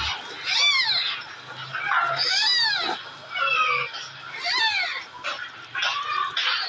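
A cat meowing repeatedly, about five drawn-out meows that rise and fall in pitch, with short gaps between them.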